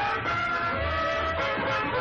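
Hot swing dance music from a small band: a held melody line over a pulsing bass.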